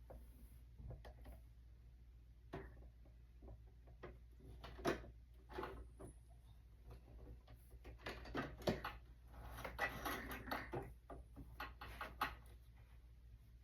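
Soft, scattered clicks, knocks and rustles of a sewing machine and fabric being handled after the machine has stopped, with a denser run of clicks and rustling a little past the middle.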